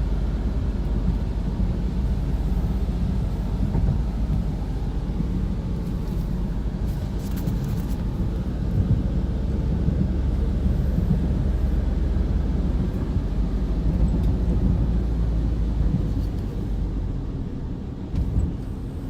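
Steady low road and engine rumble heard inside a moving car, easing off a little near the end.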